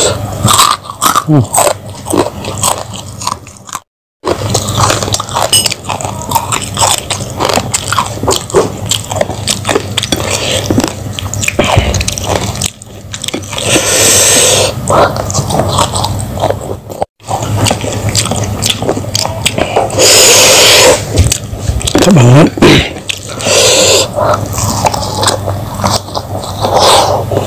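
Close-miked eating sounds: a man biting and chewing fried fish, rice and raw vegetables taken by hand, with crunches and wet mouth sounds, loud throughout. The sound drops out twice, very briefly.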